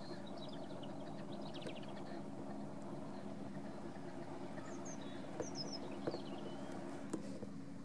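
John Deere 6215R tractor's six-cylinder diesel engine running steadily as it drives across the field with a fertiliser spreader. Birds chirp briefly near the start and again a little past halfway, and a few light ticks come in the second half.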